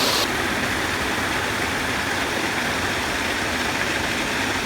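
Mineral spring water pouring steadily from an outdoor shower. About a quarter second in, the sound turns suddenly duller.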